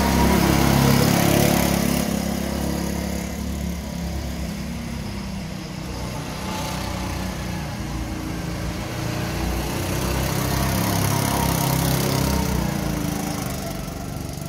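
Small petrol go-kart engines running as karts lap the track, loudest in the first two seconds as a kart passes close, easing off, then swelling again about ten to twelve seconds in.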